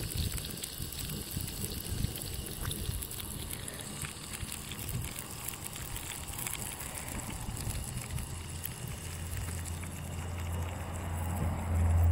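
Outdoor wind buffeting the microphone as a low rumble, with light clicks over it. The rumble grows stronger from about nine seconds in.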